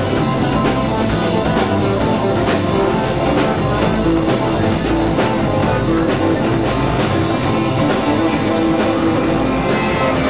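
Live rock band playing, with guitar and drum kit over a steady beat.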